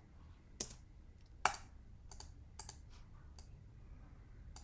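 About five sharp clicks of computer keys and a mouse being pressed, spread out and uneven, the loudest about a third of the way in, over a faint low steady hum.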